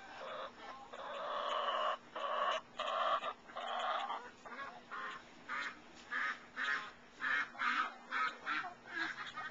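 Several hens calling: longer drawn-out calls over the first four seconds, then a run of short calls about two a second.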